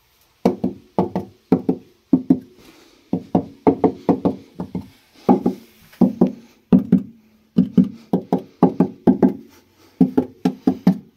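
Knuckles knocking on the bare sheet-steel rear wheel arch of a Dacia Spring, two or three knocks a second. Each knock rings briefly with a hollow metallic tone, showing how the panel resonates without sound-deadening.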